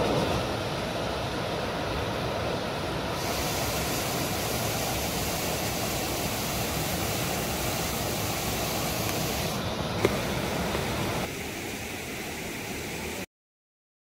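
Small forest waterfall and stream, a steady rush of falling and running water. The rush shifts in tone and loudness a few times, there is one sharp click about two-thirds of the way in, and the sound cuts off abruptly shortly before the end.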